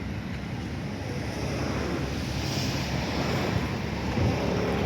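Waterfront ambience: a steady low engine drone, with wind buffeting the microphone over the wash of water, slowly growing louder.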